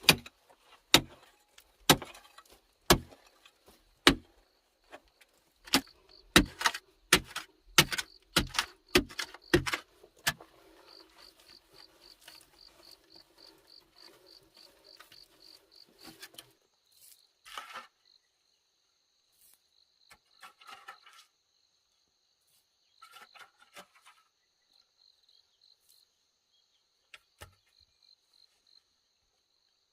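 Sharp knocks of a tool striking, about one a second for ten seconds, then a few seconds of rough scraping. An insect chirps in a steady pulsing trill, and a few scattered softer knocks follow.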